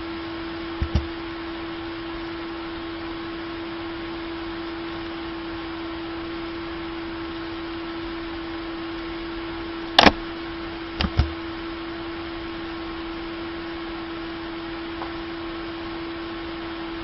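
Steady hum and hiss of the recording's background, broken by a few clicks: a quick double click about a second in, a sharp loud click about ten seconds in, and another double click a second later.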